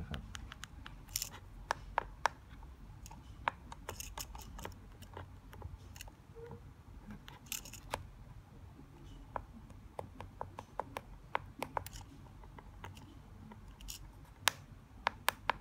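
Irregular small plastic clicks and handling knocks: buttons on a Mercedes remote key being pressed over and over to wake it so a handheld key tester can read it. A few clicks stand out louder, about a second in, near two seconds, and near the end.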